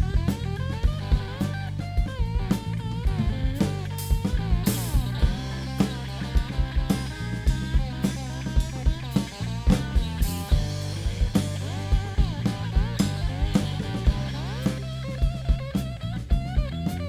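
Rock band playing an instrumental passage: a guitar lead with bending, sliding notes over a steady bass line and drum kit.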